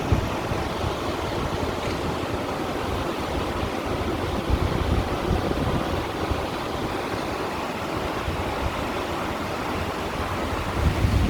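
Sea water washing and splashing over shore stones in a steady, continuous wash, with louder surges about four and a half seconds in and again near the end.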